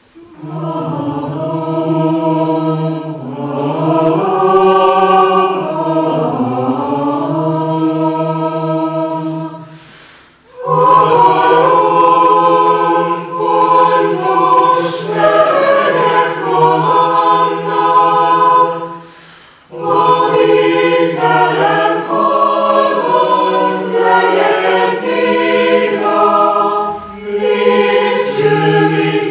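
Chamber choir singing in three phrases, with short breaks about ten and twenty seconds in.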